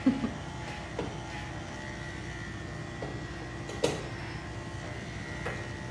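Steady electrical hum of room equipment with a faint high whine, broken by a few light knocks and clicks from handling: a dull thump at the very start and a sharp click about four seconds in.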